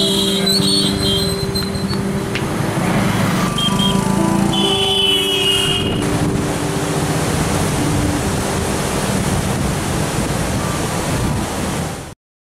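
Road and vehicle traffic noise, with several steady horn tones in the first half; the sound cuts off abruptly near the end.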